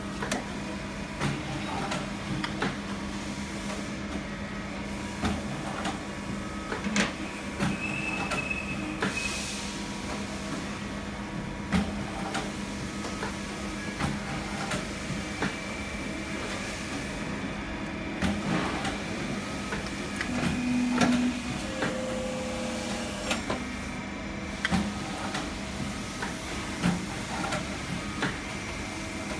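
XY4965 plane hydraulic embossing machine running, its motor and pump giving a steady hum, with scattered clicks and knocks as material is handled on the press plate and a short hiss about nine seconds in.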